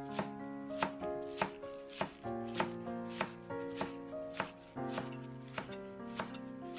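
A cleaver chopping green onions on a wooden cutting board, about one steady chop every half second or so, over background music with held melodic notes.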